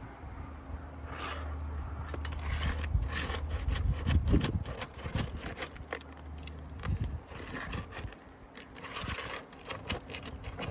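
Asphalt roof shingles being pried up and nails worked loose: repeated scraping, rubbing and sharp clicks, uneven in rhythm. A low steady hum sits underneath and stops about seven seconds in.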